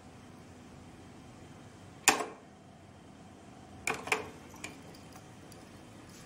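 Sharp mechanical clicks from the controls of a Beocord 2000 De Luxe reel-to-reel tape recorder being worked by hand: one loud click about two seconds in, then a quick pair and a lighter click near four seconds. A faint steady hum of the running deck lies under them.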